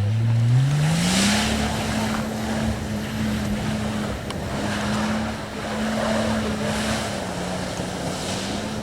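Off-road 4x4's engine revving up hard in the first second and then held at high revs under load, with several surges of splashing noise as the wheels churn through wet ground.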